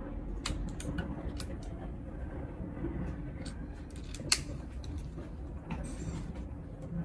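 A single sharp crack about four seconds in, an air rifle shot through a muzzle-mounted chronograph, over a steady low background rumble with a few faint clicks.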